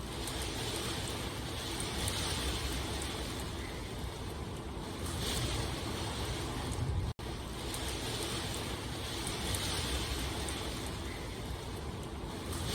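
Steady rain, an even hiss that swells and eases slowly, cutting out for an instant about seven seconds in.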